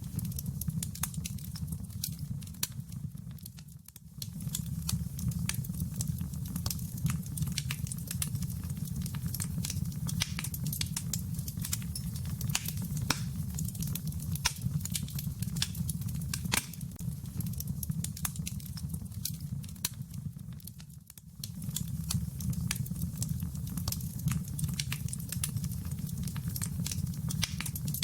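Wood fire crackling in a fireplace: a steady low rumble under frequent sharp pops and snaps. The sound fades briefly twice, about four seconds in and again after about twenty seconds.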